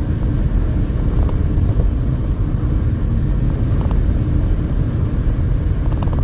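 Steady low rumble of road and wind noise inside a moving passenger car, with the strong crosswind pushing the car around.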